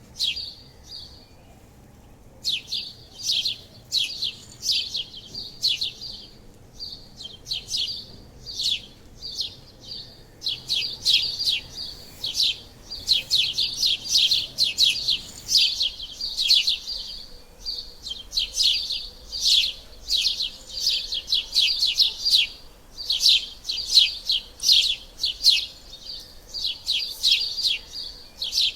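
House sparrows chirping: short, sharp chirps repeated rapidly in bouts, after a brief pause at the start.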